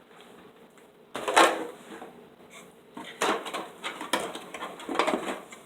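Cardboard packaging and bird feeder parts being handled: rustling and knocks, the loudest about a second in and several shorter ones later.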